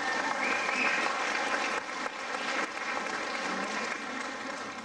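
Audience applauding, easing slightly toward the end.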